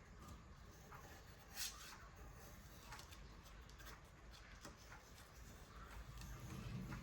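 Faint, scattered clicks and light rustles of paper being handled, with one sharper click about one and a half seconds in, over a low room hum.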